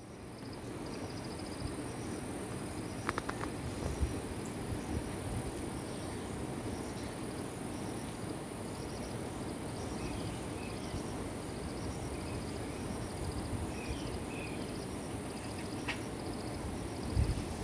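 Insects chirping outdoors: a steady high-pitched drone with a regular row of short pulsed chirps repeating throughout, and a few brief lower chirps in the second half over a low rumble.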